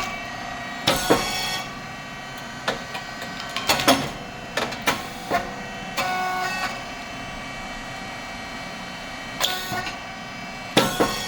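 SYP5804T rice cake popping machine running, with a steady mechanical hum. Clusters of sharp clacks and knocks come every second or two.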